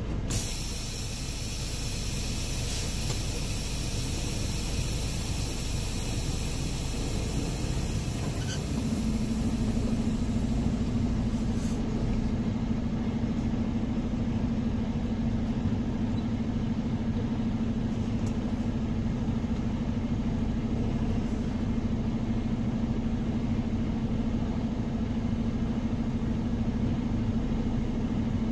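Semi truck's diesel engine running at low speed as the truck creeps forward, heard from inside the cab. A steady low hum sets in about nine seconds in.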